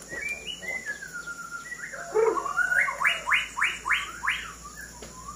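White-rumped shama singing: a gliding whistled phrase, then a run of about five quick, sharp repeated notes, roughly three a second.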